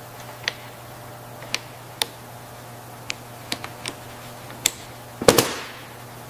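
Ratchet wrench on a hydraulic line fitting, giving sharp metallic clicks at irregular intervals, then a louder double clack about five seconds in. A steady low hum runs underneath.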